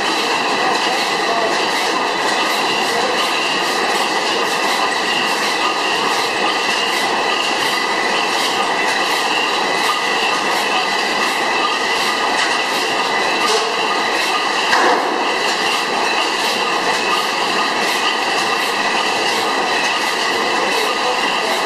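300 hp Miller Improved stationary gas engine running steadily, a continuous clattering mechanical din with a few steady high tones over it. One louder knock about two-thirds of the way through.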